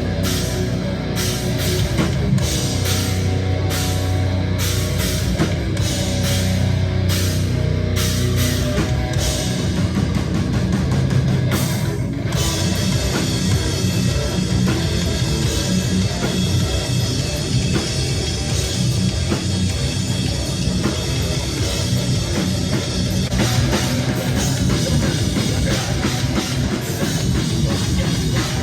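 A live heavy rock band playing loud, with drum kit and distorted electric guitars. The first part is a run of stop-start hits, and about twelve seconds in it opens into a sustained full-band section.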